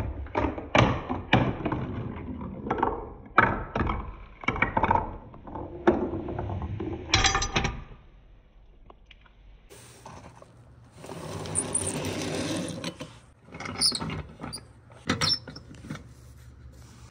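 Wooden balls rolling and clattering down a toy marble run, with many quick clicks and knocks as they drop between track sections and into a toy truck's bed. A few seconds of steady rolling noise come past the middle, then more scattered clicks.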